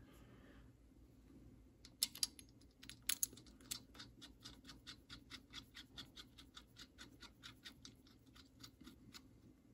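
A 5/16 bolt and washer being threaded by hand into the centre of a belt pulley: a few sharp metal clicks as it is set in place, then faint regular clicks, about three or four a second, as the bolt is turned.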